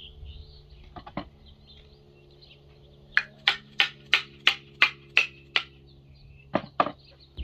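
Sharp knocks from the axe being struck to drive the head farther onto the red elm haft: a pair, then a run of eight blows at about three a second, then another pair. Birds chirp faintly behind.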